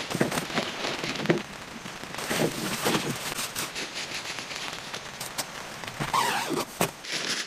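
Nylon fabric of a Zerogram tent rustling and crinkling as it is handled and pitched, with scattered sharp clicks and taps of poles and clips.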